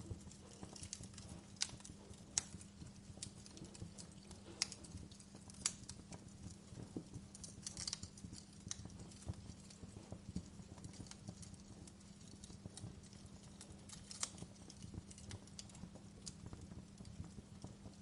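Wood fire crackling in a fireplace: irregular sharp pops and snaps over a steady low hum.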